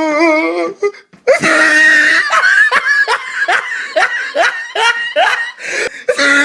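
Sound-effect clip of a person laughing hard: a rapid, high-pitched run of ha-ha-ha, about three laughs a second, starting about a second in. Before it, a wavering drawn-out voice from the previous clip cuts off.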